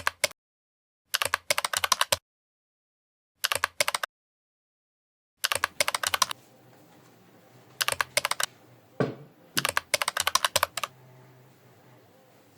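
Computer keyboard typing in six short bursts of rapid clicks, each about half a second to a second long, with silent gaps between. About nine seconds in there is a brief swooping tone.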